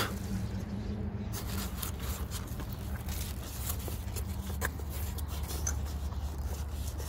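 Small handling sounds of scattered light taps and scrapes, as parts are worked by hand, over a steady low hum.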